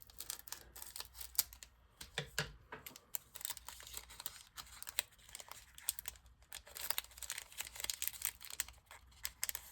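Foil trading-card pack wrapper being torn open and crinkled by hand, with the cards inside handled: a steady run of irregular crackles and clicks.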